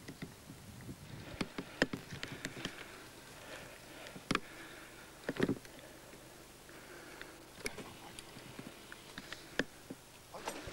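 Footsteps in dry undergrowth: irregular faint cracks of twigs snapping and brush rustling, with a duller thud about five seconds in.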